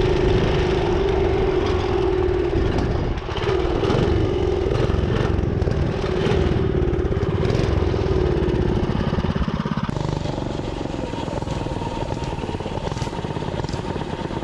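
Mini bike's small engine running steadily at high throttle, with wind rushing over the microphone as the bike speeds along. About ten seconds in the sound cuts to a different, lighter engine note.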